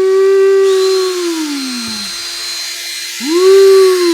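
Hand-held electric drill running: its motor whine holds steady, then winds down about two seconds in as the trigger is let go, then spins up again briefly near the end. A rasping hiss from about a second in is the bit grinding against the Apple Watch's case without breaking through.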